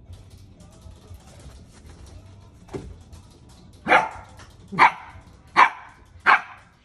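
Samoyed puppy barking at her own reflection in a mirror: four barks, roughly a second apart, starting about four seconds in.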